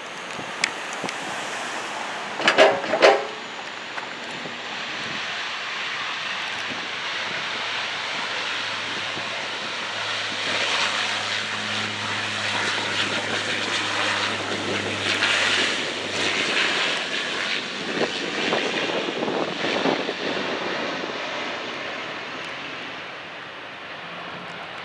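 An airplane passing, its engine noise building to a peak in the middle and then fading away. Two brief loud bumps come near the start.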